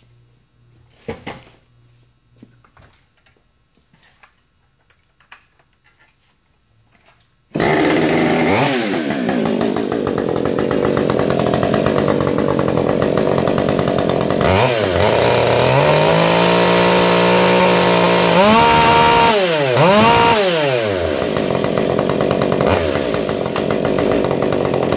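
Ported and decked Husqvarna 562 XP two-stroke chainsaw. After about seven seconds of faint handling clicks it suddenly starts running loud, and is revved up and down several times.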